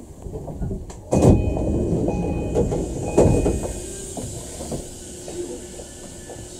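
Inside an E233-series electric train car stopping at a station: a sudden loud rush of air and clatter about a second in as the doors open, peaking again around three seconds, then settling to a low hum of the stopped car.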